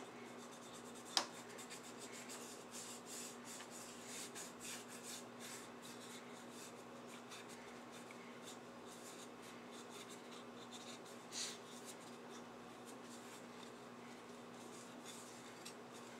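Faint rubbing and scratching as dust and grime are wiped off a Leslie speaker's slow rotor motor, with a sharp click about a second in and a short knock around eleven seconds, over a faint steady hum.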